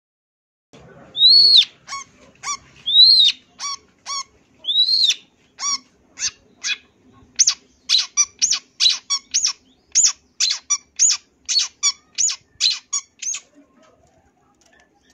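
Long-tailed shrike singing: starting about a second in, three arched, rising-then-falling whistled notes alternate with short sharp notes, then a quick, even run of sharp notes at about three a second that stops shortly before the end.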